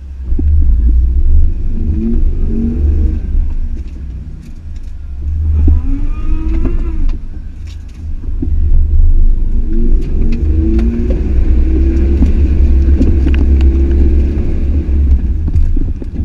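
Off-road vehicle engine rumbling as it drives a rough dirt trail. It revs up briefly twice in the first half, then holds a longer rev through much of the second half, with scattered knocks and clicks over it.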